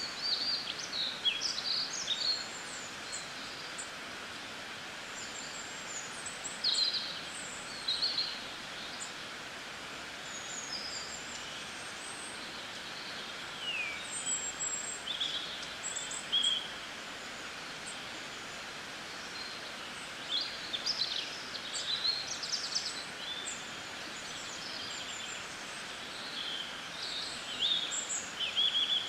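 Small birds chirping and twittering in short, scattered bursts over a steady background hiss.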